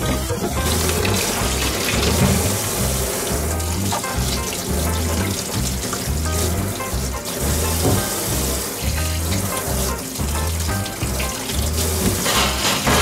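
Kitchen tap running into a stainless steel sink and bowl, the water splashing over hands as an eggplant is rinsed. Background music with a steady bass beat plays under it.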